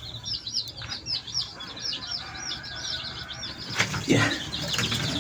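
Baby chicks peeping together, a rapid string of high, falling peeps. A knock sounds about four seconds in.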